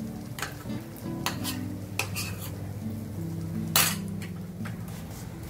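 A metal utensil clinking and tapping against a non-stick frying pan as butter is put onto a chapati roasting in it, with a light sizzle. Several sharp clinks, the loudest just under four seconds in.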